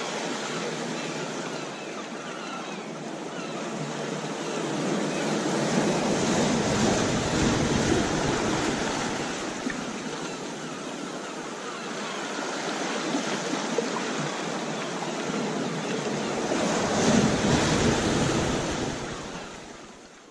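Ocean waves breaking on a shore: a steady wash of surf that swells up twice, about six to eight seconds in and again near seventeen seconds, then fades out at the end.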